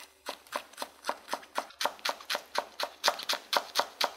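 A chef's knife slices rolled perilla leaves into thin strips on a wooden cutting board. The blade knocks on the board in a steady rhythm of about four strokes a second.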